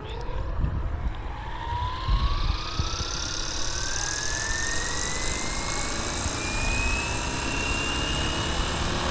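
Electric RC scale helicopter, a FlyWing Huey UH1 V3, spooling up on the ground: a motor whine rises slowly and smoothly in pitch as the rotor gathers speed, and a rushing noise from the blades builds with it. A low rumble and a few thumps sit underneath.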